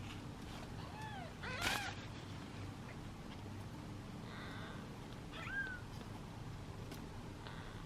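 Very young kittens mewing in short, high, arching calls, three or four of them, the loudest a little under two seconds in. These are the calls of hungry kittens waiting for their bottle feed.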